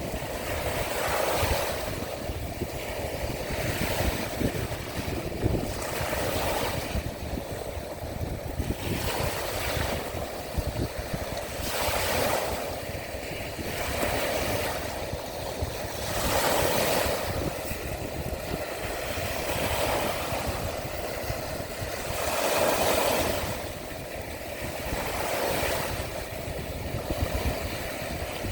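Sea of Azov waves washing onto the shore, each one swelling and fading every three to five seconds, over a steady low rumble of wind on the microphone.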